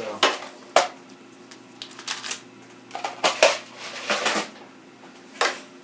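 Short rustles and clicks of small plastic parts being handled, about six separate bursts, as a tube of CPU heatsink compound is readied for applying. A faint steady hum runs underneath.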